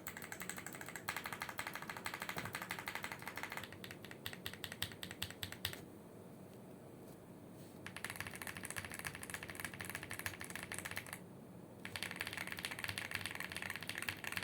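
Fast typing on a Leobog Hi75 aluminium-alloy mechanical keyboard with tactile switches (Tecware Wraith Orange and MMD Princess tactiles), a quick run of key clacks. It stops for about two seconds midway, resumes, pauses briefly again, and goes on to the end.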